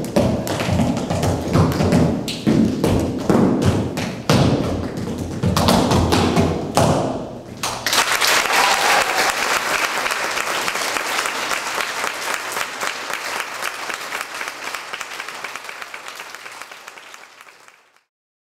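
Tap dancing: rapid, irregular taps and heavy stomps of a dancer's feet on the studio floor. About eight seconds in, the footwork stops and a small group breaks into applause, which fades out near the end.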